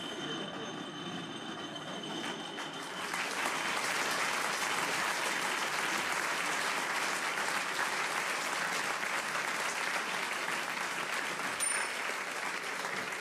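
A microwave oven running on full power with a glowing plasma ball inside it, a steady hum with a high whine; about three seconds in, an audience breaks into loud applause that carries on.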